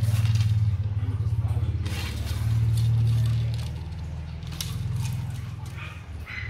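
A low engine drone that swells twice and then dies down after about four seconds. Light scrapes and clicks come from the carbon surf rod being handled and its white tip section drawn out.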